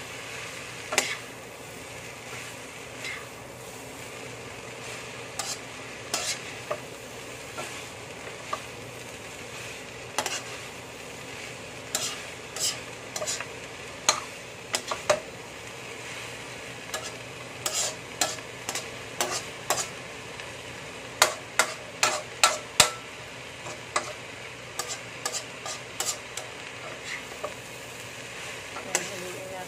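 Vegetable filling sizzling in a wok while it is stir-fried with a wooden spatula and a metal spoon. Frequent sharp scrapes and clacks of the utensils on the pan run over a steady hiss, and they come thickest and loudest about two-thirds of the way through.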